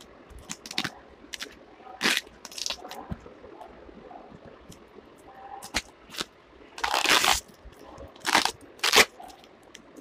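Irregular rustling and crinkling as embroidered cloth is handled right at the microphone, in uneven bursts, the longest and loudest about seven seconds in.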